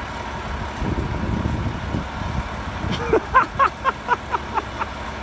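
Diesel engine of a crane truck running steadily, powering the loader crane's hydraulics during a lift. About three seconds in comes a quick run of about nine short high-pitched chirps, about four a second, fading away.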